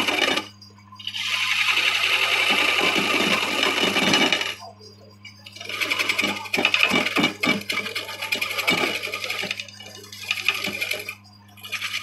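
A woodworking machine cutting wood in bursts of a few seconds each, as the tool is pressed in and eased off. A steady electric motor hum runs underneath.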